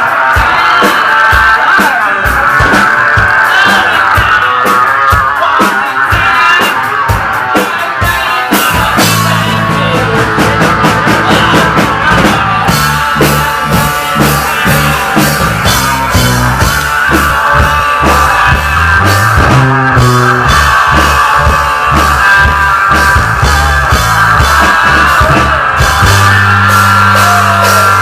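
Rock band playing live, with drums and guitar. A bass line comes in about a third of the way through.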